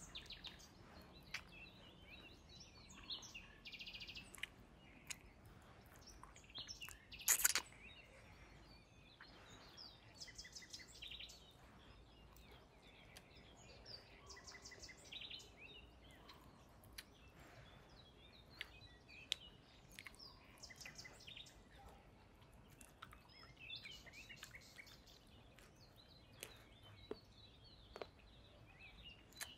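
Birds chirping and trilling in the background, with scattered small clicks and mouth noises from someone gnawing on chicken feet. One louder, sharp sound comes about seven seconds in.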